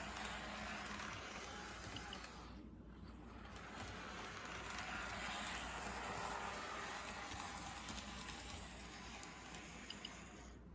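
N scale Kato F40PH model locomotive running along the layout's track: a faint, steady whir of the small motor and wheels on the rails with light clicks, growing louder and softer as it moves around the layout.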